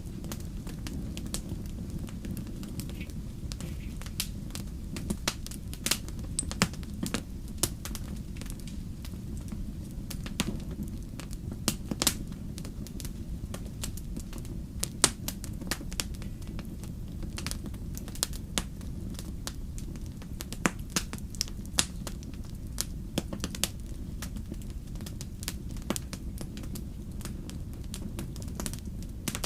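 Wood fire burning: a steady low rumble of flames with frequent sharp, irregular crackles and pops of burning logs.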